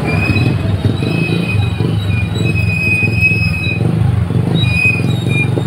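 A vehicle engine runs close by as a steady low rumble, with repeated thin, high-pitched squeals over it.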